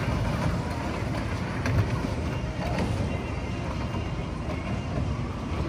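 Small amusement-park ride train's carriages rolling past on the rails and pulling away: a steady low rumble with a few faint wheel clicks.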